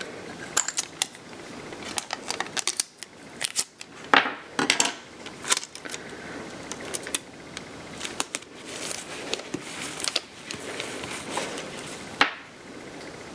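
Heat-resistant tape and an infusible ink transfer sheet being handled and pressed onto a cap: irregular crinkling and rustling with scattered light taps and clicks, and one louder, sharp crackle near the end.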